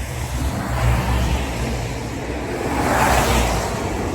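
Road traffic passing close by: a steady rush of tyres and a low engine rumble, swelling as vehicles go past, loudest as one passes about three seconds in.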